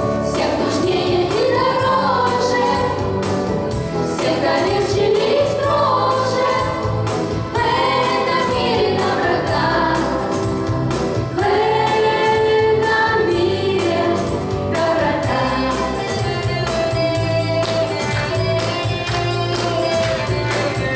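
Group of voices singing a song in unison over instrumental accompaniment with a steady beat, the high percussive ticks growing busier in the second half.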